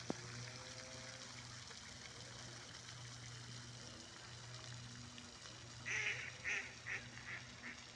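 A mallard hen gives her descending run of quacks about six seconds in: five quacks, each shorter and quieter than the last and coming closer together. A single sharp click sounds right at the start, over a steady low background noise.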